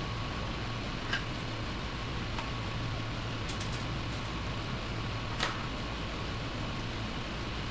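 Steady low mechanical hum with a faint high steady tone, broken by three light clicks about one, two and a half and five and a half seconds in.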